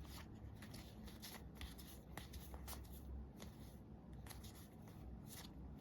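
Trading cards being flipped through by hand, one slid behind another: faint, irregular soft clicks and rubs of card stock, over a low steady hum.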